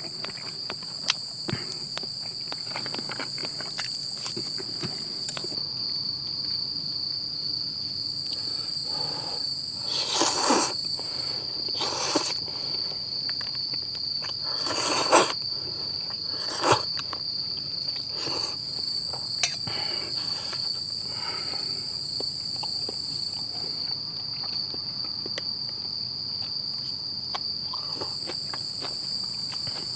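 Crickets trilling steadily, with a second, higher insect call that starts and stops in stretches. A few short clatters and knocks break in around the middle.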